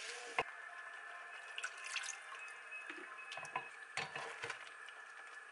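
A silicone spatula and a spoon stirring thick sauce paste into water in a ceramic bowl: small wet sloshing sounds and scattered light clicks of the utensils against the bowl, with one sharper click about half a second in. The paste is dissolving unevenly and leaving lumps.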